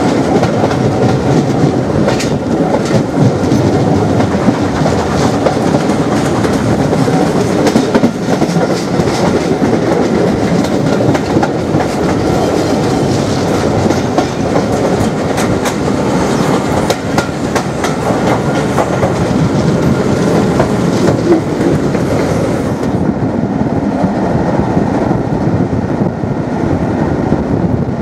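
Steam-hauled passenger coaches running at speed, with a steady rumble of wheels on the rails and scattered clicks over the track. The sound turns duller in the upper range about four-fifths of the way through.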